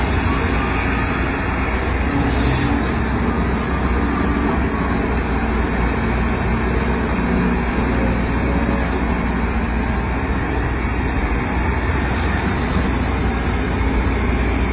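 Hydraulic excavator's diesel engine running steadily under load, a loud, even rumble.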